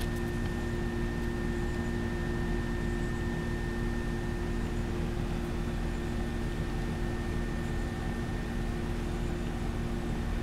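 A steady machine hum with a hiss under it, holding a few constant tones and never changing in level.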